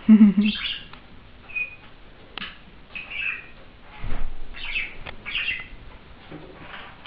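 Pet budgerigar chirping and squawking in short calls several times, after a louder short sound right at the start.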